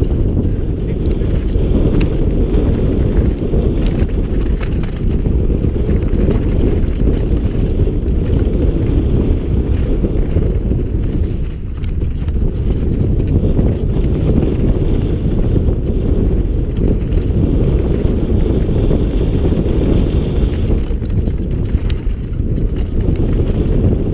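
Mountain bike riding fast down a rocky gravel trail, heard through a rider-mounted action camera: a constant low rumble of wind on the microphone and tyres on gravel, with frequent sharp clicks and rattles from stones and the bike.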